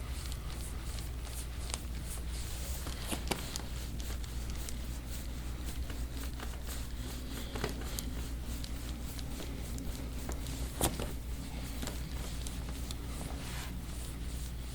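Hands rubbing and kneading a patient's back in deep tissue massage: soft rustling of skin and clothing with scattered small clicks over a steady low hum, and two sharper clicks, about three seconds in and near eleven seconds.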